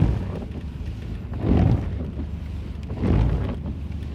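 Inside the cabin of a BMW 733i on the move: its 3.2-litre straight-six engine running steadily under road noise, with a swishing swell about every one and a half seconds from the windscreen wipers sweeping.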